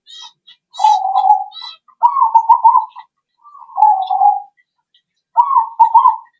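Zebra dove (perkutut) cooing: four rolling, trilled coo phrases about a second apart, with short high chirps in the first couple of seconds.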